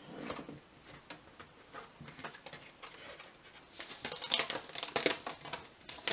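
Light rustling and tapping of a printed sticker sheet on a plastic cutting mat being handled, with a denser flurry of rustling about four to five seconds in.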